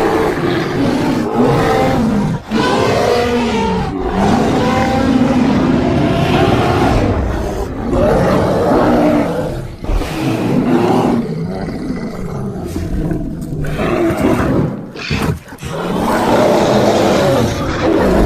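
Giant panda sound effects: a continuous run of deep growling and roaring calls whose pitch bends up and down, with brief breaks about two and a half seconds in, around ten seconds and around fifteen seconds.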